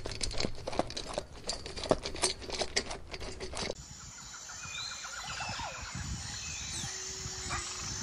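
A dog lapping water from a stainless steel bowl: a quick, irregular run of wet clicks and splashes. About four seconds in it stops abruptly and gives way to a quieter outdoor hiss with short bird chirps.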